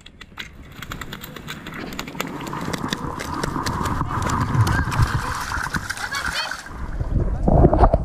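A freshly landed pink salmon flopping and slapping on the stony gravel: irregular knocks and clatter over a steady rushing hiss. Near the end the hiss stops and low rumbling handling noise on the microphone takes over.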